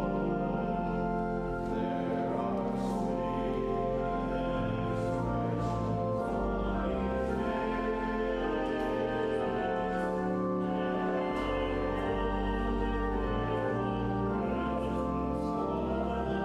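Church service music: slow, sustained chords that change every second or two over long-held bass notes.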